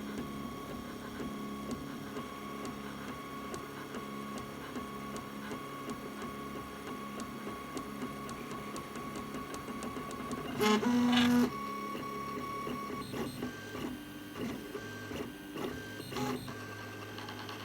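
FDM 3D printer's stepper motors whining as it lays down the first layers of support material. The pitch shifts with each move, and there is a louder, busier burst of motor tones lasting about a second a little past halfway through.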